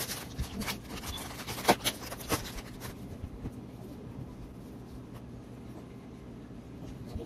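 Rustling and crinkling of a soft plastic baby-wipes pack as wet wipes are pulled out and used, with a cluster of sharp clicks in the first few seconds, then quieter handling and wiping.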